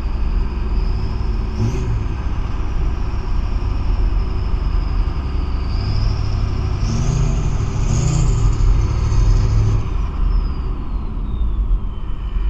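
Car engine running under load with a steady low rumble and a high-pitched whine that climbs in pitch over a couple of seconds as it revs, then slides steadily down as it eases off.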